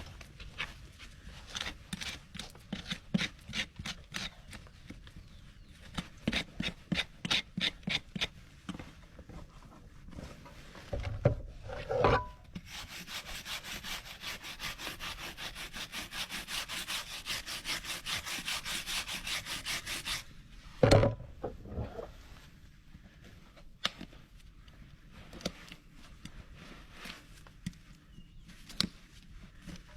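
Hoof rasp scraping across a Shire horse's hoof wall: spaced strokes at first, then a fast, even run of strokes through the middle, broken by a couple of heavy thumps.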